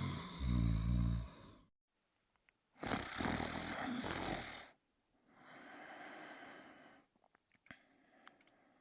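Cartoon snoring: a low, pitched snore, then after an abrupt silence a loud rasping breath in and a softer breath out, with two faint clicks near the end.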